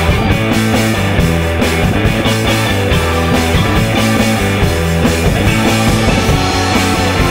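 Rock band playing: electric guitar over a steady bass line and drums, loud and continuous.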